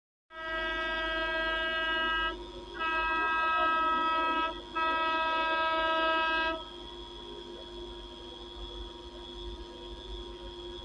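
Locomotive horn of an approaching train, sounded in three long blasts of about two seconds each, with short breaks between them. After the horn stops a fainter steady hum remains.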